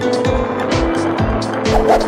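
Background music with a steady drum beat, about two beats a second, over held notes.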